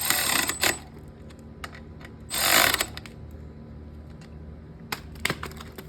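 Hand ratchet wrench clicking in two short strokes as a bolt on the dirt bike is tightened, followed by a few light metal clicks near the end.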